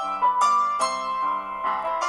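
Background music: a piano playing a melody of separate notes, several notes a second, each struck and then fading.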